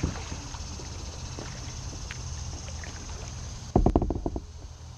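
Kayak paddling on calm water: a steady low rumble with a few faint ticks, and about four seconds in a short cluster of low thumps, the loudest sound, carried through the plastic hull.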